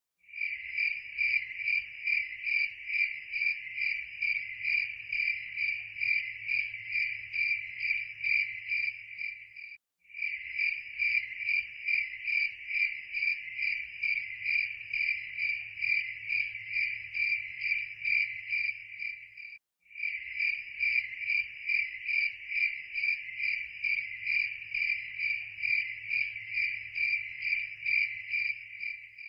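Crickets chirping steadily in an even, rapid pulse, about three chirps a second. The chirping breaks off for a moment about every ten seconds, as a looped recording restarts.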